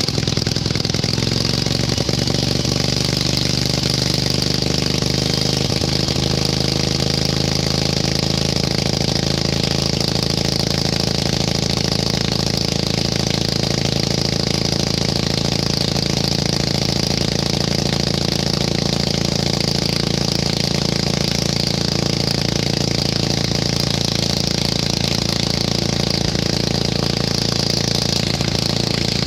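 Riding lawn tractor's engine running under load as the tractor picks up speed, its note shifting over the first eight seconds or so and then holding steady.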